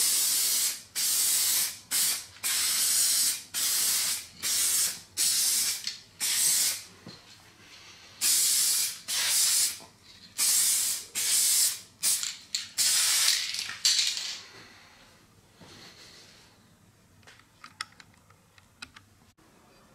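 Aerosol spray paint can spraying in a series of short bursts of hiss, about fifteen in all with a brief pause midway, stopping a few seconds before the end. A few faint clicks follow near the end.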